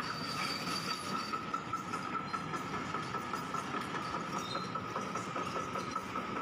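Kobelco hydraulic excavator running: a steady engine noise with a steady high whine over it.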